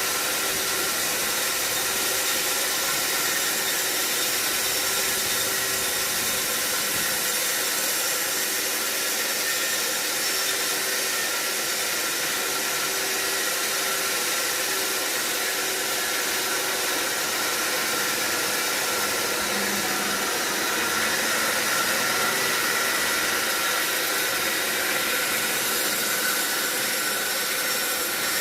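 Large sawmill saw cutting through a mahogany log, a constant loud hiss with steady high whining tones that does not let up.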